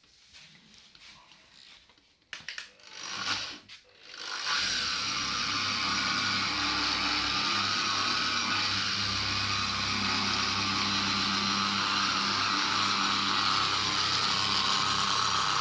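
A few handling knocks, then about four and a half seconds in a handheld electric polishing tool with a pad starts and runs steadily, buffing the boat hull.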